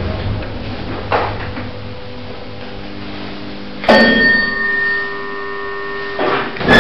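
Lift machinery running with a steady low hum and a small click about a second in. About four seconds in comes a sudden ringing tone with several pitches that holds for about two seconds, like a lift's arrival chime.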